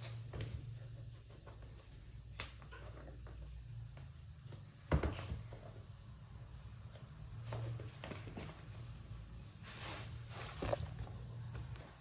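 Hands handling an unboxed keyboard and its packaging: scattered light taps and rustles, with a sharper knock about five seconds in and another near the end, over a low steady hum.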